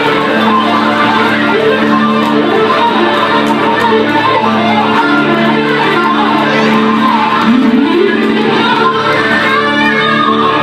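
Two acoustic guitars playing together live, picked notes and chords ringing over sustained low notes, with a note sliding up in pitch about three quarters of the way through.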